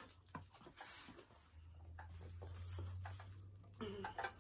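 Faint eating and drinking noises: scattered soft clicks and wet mouth sounds from sipping at a plastic cup and eating with a plastic fork, over a low hum that swells in the middle. A brief murmur of voice comes near the end.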